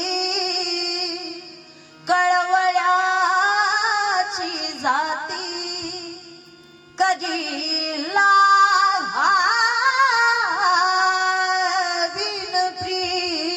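A woman singing a Marathi kirtan melody in long held notes with wavering, gliding ornaments. Two phrases begin about two and seven seconds in, each after a brief drop in the sound.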